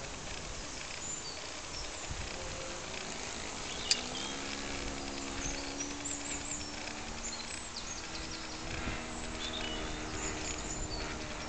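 Radio-controlled model Cessna 177 Cardinal flying overhead, its engine a faint steady drone that comes in about four seconds in with a slight rise in pitch, against birds chirping throughout.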